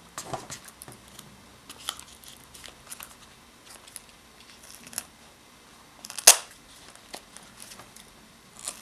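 Handling noises: scattered light clicks and small rustles, with one sharp, loud click about six seconds in.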